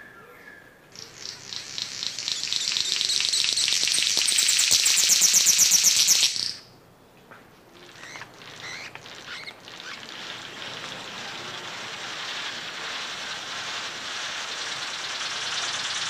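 Male King of Saxony bird of paradise calling: a fast, buzzing rattle that swells in loudness for about five seconds and cuts off abruptly. A quieter hissing sound follows after a short pause and slowly grows.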